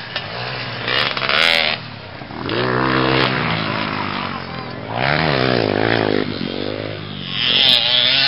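Motocross dirt bike engine revving, its pitch climbing and dropping again several times as the rider works the throttle over the track's bumps. There is a short loud rush of noise about a second in and another near the end.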